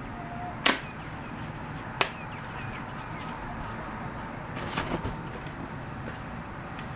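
Sharp knocks and clicks of table parts being fitted together during assembly: one under a second in, another about a second later, then a short cluster of clatter near the end.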